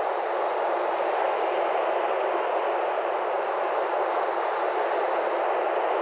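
Steady, even rushing noise of surf washing on a sandy beach, with no single wave or event standing out.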